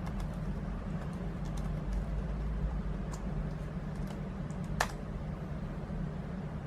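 Miele S8310 canister vacuum with a 2200-watt motor running steadily during an airflow measurement: a constant low hum, with scattered light clicks and one sharper click about five seconds in.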